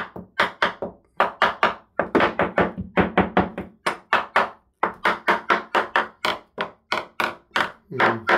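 A small hammer tapping quickly along a yacht's timber bulkhead and its glassfibre tabbing, a surveyor's tap test sounding for delamination. The taps come in quick runs of two to four a second, with short pauses between runs.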